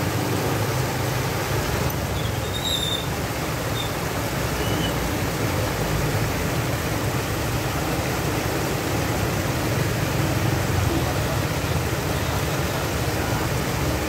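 Water pouring over a small bamboo weir into a stream: a steady rush with a deep low rumble. A few faint high chirps about three seconds in.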